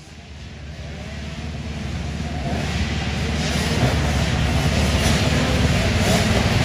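Motocross bike engines running, the sound fading up and growing steadily louder over the first few seconds, then holding.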